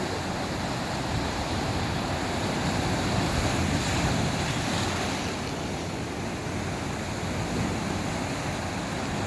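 Sea surf washing ashore in a steady rush that swells a little a few seconds in, with wind buffeting the microphone.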